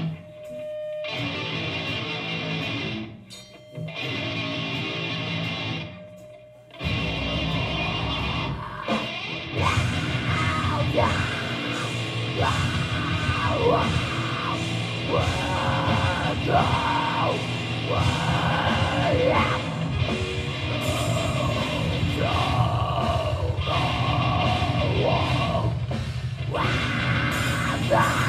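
Heavy metal band playing live: distorted electric guitars, bass and drums. For the first seven seconds the riff is stop-start, with short breaks at about half a second, three and a half and six and a half seconds in. Then the full band plays on, with yelled vocals coming in about ten seconds in.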